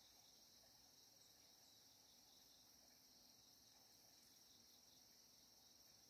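Faint, steady high-pitched chorus of insects, with a slight pulsing, over near silence.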